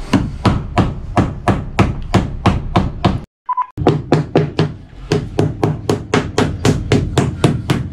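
A mallet tapping PVC edge trim onto the edges of wooden interior panels: a steady run of sharp knocks, about three a second, with a brief break about three seconds in, after which the taps come a little faster.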